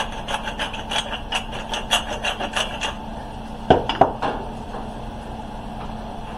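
Pepper mill grinding black pepper, a rapid even series of gritty rasping turns, about three or four a second, that stops about three seconds in. Two sharp knocks follow about a second later.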